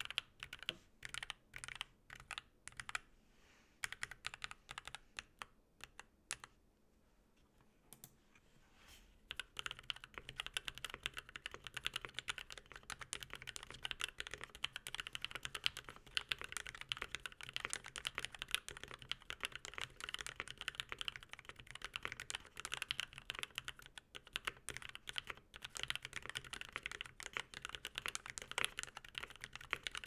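KBDFans KBD8X MkII mechanical keyboard with a brass plate, foam and lubed, filmed TKC x C3 Tangerine linear switches under PBT keycaps, being typed on. The first nine seconds or so are scattered single keystrokes, then fast continuous typing.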